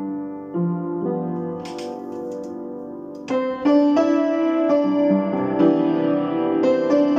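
Upright piano being played: a soft, slow passage, then louder, fuller chords from about three seconds in.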